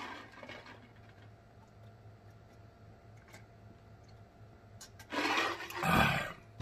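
A man drinking from a glass mug: a short breath as he starts, the gulps too faint to stand out, then two loud breathy exhales near the end as he comes off the drink.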